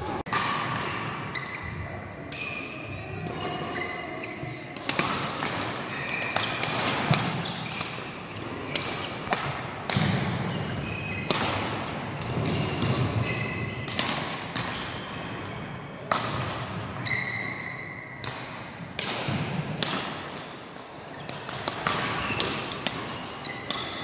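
Badminton drill: repeated racket strikes on the shuttlecock and footsteps on a wooden court, with short squeaks of shoes between them.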